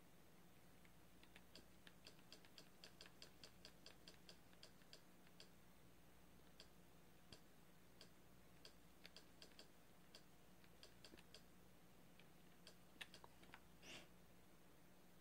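Faint button clicks of a TV remote control, pressed repeatedly to scroll down a menu: several clicks a second at first, then single clicks spaced out, with a brief rustle near the end.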